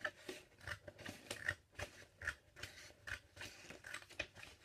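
Scissors cutting through a sheet of A4 paper, a steady run of short snips about two to three a second.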